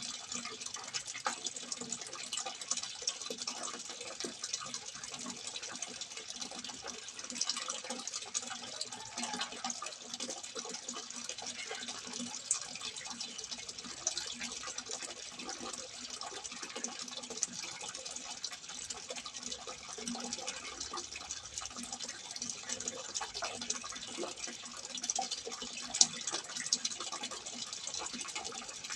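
Water running steadily from a simple spout and splashing into water below, a continuous trickle with fine drips, with one sharper splash about 26 seconds in.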